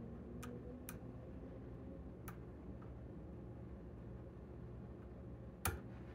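Light, sharp metallic clicks of a hook pick working the pins inside a lock cylinder: three soft clicks in the first few seconds and a louder one near the end, over a low steady hum.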